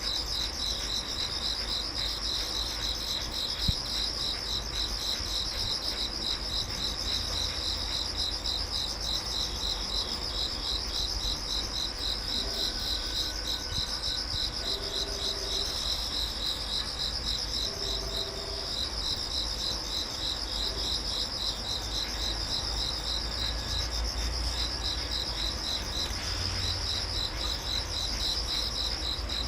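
Insects chirping in a steady, high-pitched, rapidly pulsing chorus, over a low rumble.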